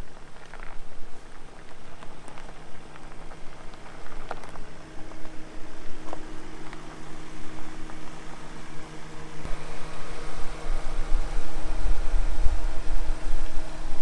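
Ford Transit Nugget campervan's diesel engine running at low speed as the van is manoeuvred over a gravel pitch, a steady low hum with a little crackle. A heavier low rumble comes in about two-thirds of the way through.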